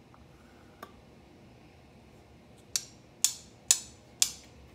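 Four sharp metal clinks about half a second apart, from a metal measuring spoon being tapped with a butter knife over a mixing bowl to knock out the last of the baking powder.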